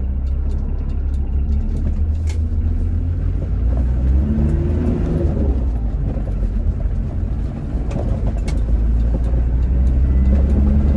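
Mitsubishi L200 pickup's 4D56 diesel engine running and road rumble while driving. The engine note rises and falls about four seconds in, with a couple of light knocks along the way.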